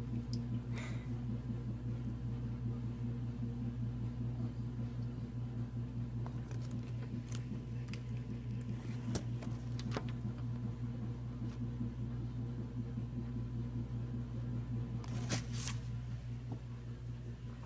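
A steady low hum throughout, with scattered light clicks and rattles as plastic window blinds are brushed, and a short cluster of sharper clicks near the end.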